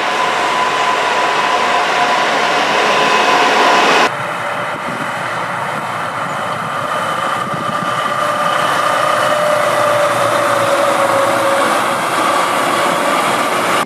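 Heavy eight-wheeled military rocket launcher trucks driving by, their engines and drivetrains running with a steady whine over loud rumbling noise. The sound changes abruptly about four seconds in, and from then on a whine slowly falls in pitch as the trucks pass.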